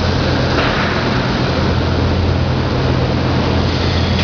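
Steady, loud mechanical running noise with a low hum underneath, from a machine or motor running nearby.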